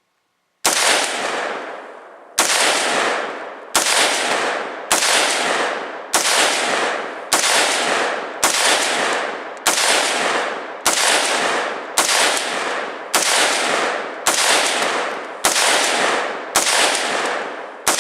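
AR-15 rifle in .223/5.56 firing fifteen single shots at a steady pace, about one every 1.2 seconds. Each shot is followed by a long echo that fades before the next.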